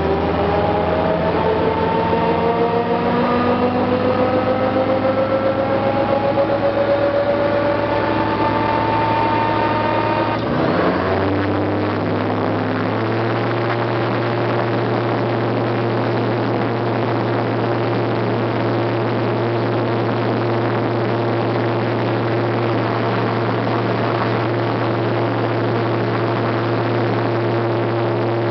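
Gyrocopter engine running loud from inside the cockpit. For about ten seconds a whine rises slowly in pitch. Then the sound shifts, and from about thirteen seconds in the engine holds a steady note as the gyrocopter rolls down the runway for takeoff.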